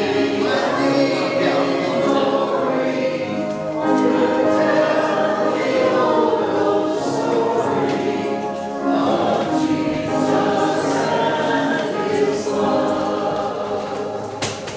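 A choir singing a hymn with held, sustained chords, fading out near the end.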